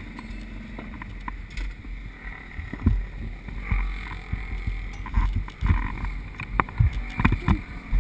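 Wind rumbling on the microphone, with irregular knocks and bumps from the camera being handled; these come more often in the second half.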